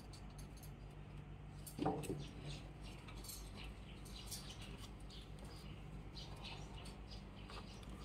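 Rope rustling and sliding over wooden poles as a lashing is tied, with small clicks and scrapes throughout and one louder knock about two seconds in, over a steady low hum.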